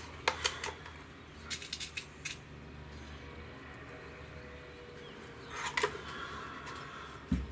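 Scattered light clicks and clacks of a .22 Norica Omnia ZRS break-barrel air rifle being handled between shots as it is cocked and a pellet is loaded, with a short dull thump near the end.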